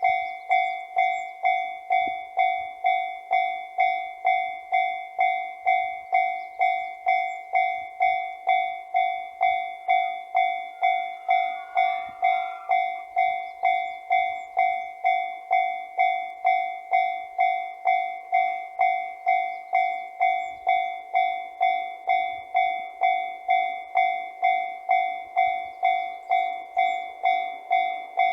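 Japanese railway level-crossing warning bell ringing, an even clang-clang at about two strikes a second.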